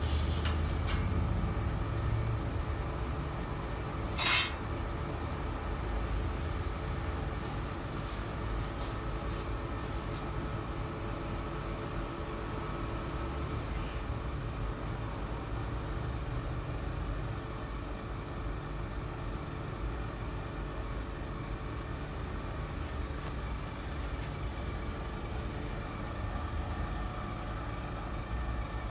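Steady low rumble with a faint hum running under it, and one sharp knock about four seconds in.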